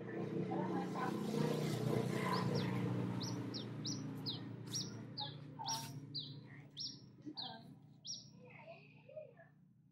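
A bird chirping repeatedly, a run of short high notes that each fall in pitch, about two a second, starting a couple of seconds in and stopping near the end. Under the first few seconds a low hum swells and fades away.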